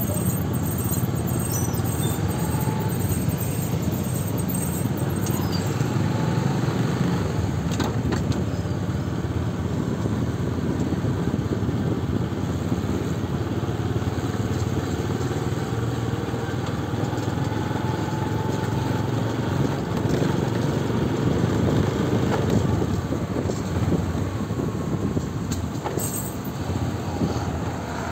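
Street traffic: motorcycles riding past and vehicle engines running, a steady low rumble.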